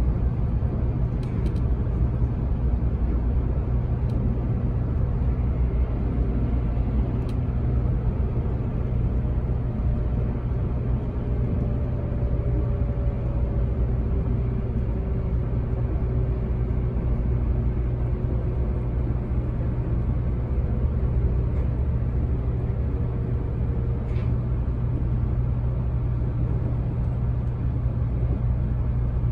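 JR Kyushu 783 series electric train running at speed, heard from inside behind the cab: a steady low rumble with a faint whine that drifts slightly down in pitch partway through, and a few light clicks.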